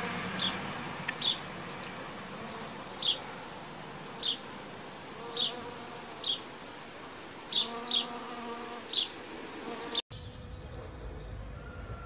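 Honeybee buzzing in flight, a low hum that swells about two-thirds of the way through. Short high chirps sound over it about once a second, and the sound cuts off abruptly near the end to a different, quieter background.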